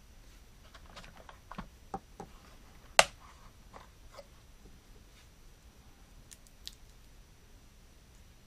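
Hard plastic clicks and knocks from an action figure being handled and fitted into a plastic toy jeep, with one sharp, loud click about three seconds in.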